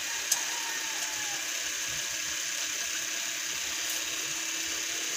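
Coconut-milk stew boiling hard in a wok, a steady hiss with a single sharp click about a third of a second in.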